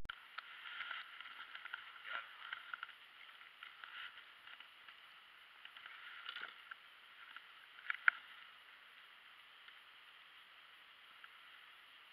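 Faint, sparse knocks and rustles of fishing gear and a caught crappie being handled in a small plastic boat, over a steady faint hiss. A sharper knock comes about eight seconds in.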